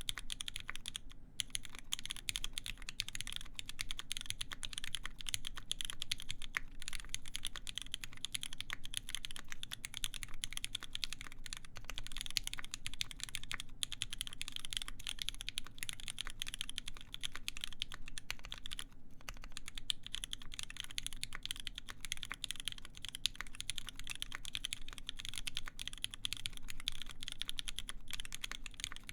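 Fast, continuous typing on a SINGA x TGR Unikorn mechanical keyboard with a full brass plate, GMK keycaps and lubed vintage Cherry MX Black linear switches: a steady stream of key clacks, with a couple of brief pauses.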